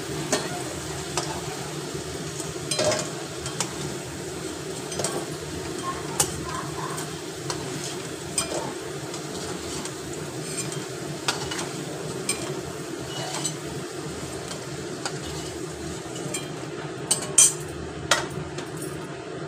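Potato pieces sizzling steadily in hot mustard oil in a metal kadai, while a metal spatula scrapes and clinks against the pan as the potatoes are lifted out. The clinks come every second or so, the sharpest a little before the end.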